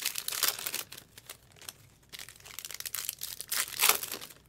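Foil trading-card pack wrappers crinkling and tearing as Topps Chrome packs are opened and the cards handled, in irregular crackly bursts, loudest at the start and again near the end.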